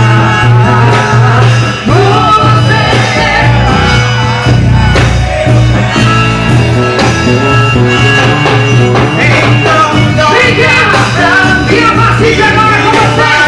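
Loud music with singing over a strong, steady bass line.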